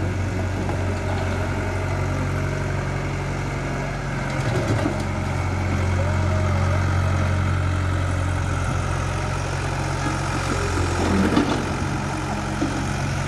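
Caterpillar hydraulic excavator's diesel engine running steadily while the machine lifts and swings a bucket of broken asphalt, with a couple of short clunks from the bucket and debris.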